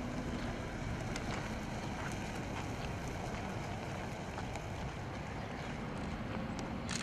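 Wind rumbling steadily on the microphone, with the faint engine of a pickup truck driving slowly off across dirt ground.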